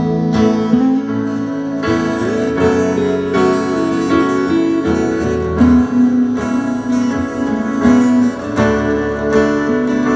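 Live music: a guitar-led instrumental intro to a song, with held chords and notes that change every second or so, and no singing.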